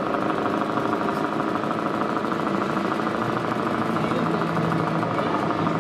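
Diesel engine sound from a 1:14 scale RC model truck's sound module, running steadily with a rapid pulsing beat.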